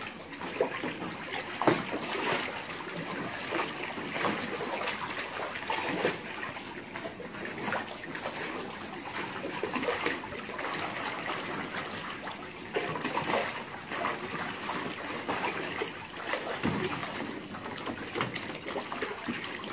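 Water splashing and sloshing in a plastic kiddie pool as two otters roll and wrestle in it, with irregular louder splashes throughout.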